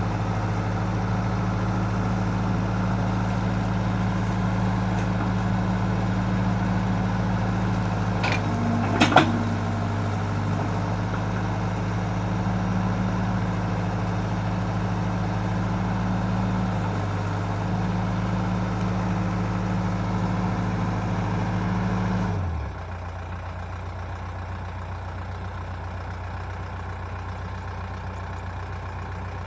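A heavy machine's engine running steadily at idle, then shutting off about 22 seconds in, its pitch sagging as it stops. There is a brief sharp squeal and two knocks a little before the middle.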